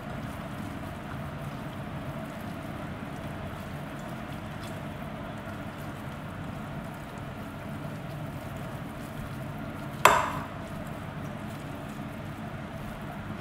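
Hands squishing and mixing wet marinated soya chaap pieces in a bowl, over a steady low hum. About ten seconds in there is one sharp knock, the loudest sound.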